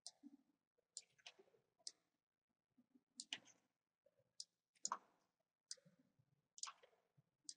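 Faint computer mouse button clicks, about a dozen at irregular intervals, some in quick pairs, as the mouse is used to select and drag.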